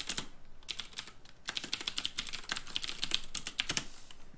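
Typing on a computer keyboard: quick runs of keystrokes, with a short pause about a second in followed by a denser run of clicks.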